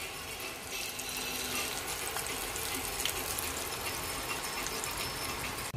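Breaded pieces deep-frying in hot oil: a steady sizzle with many fine crackles.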